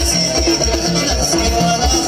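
Loud Amazigh folk music from the Souss, a dense band texture driven by a steady beat of about two to three low strokes a second.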